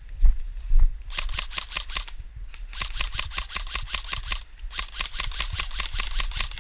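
Airsoft guns firing full-auto: three long strings of rapid, evenly spaced clicking shots, the first starting about a second in. A couple of low thuds come before the first string.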